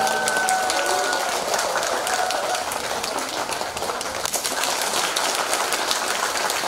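A mixed choir's final held chord dies away in the first second or so, then an audience applauds steadily.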